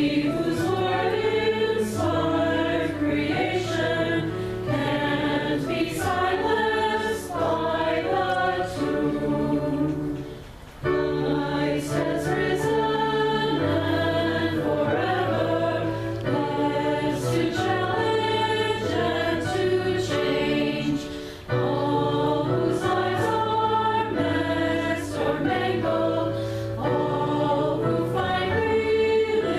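A congregation singing a hymn together with keyboard accompaniment, the chords held under the voices. The singing breaks off briefly twice, about ten and twenty-one seconds in, between lines.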